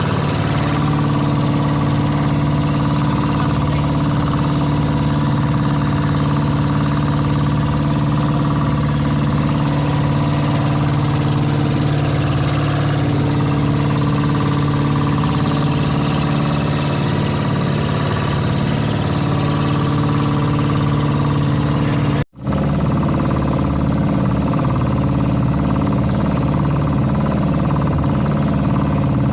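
A small boat's engine running steadily under way. The sound cuts out for an instant about two-thirds through, then carries on.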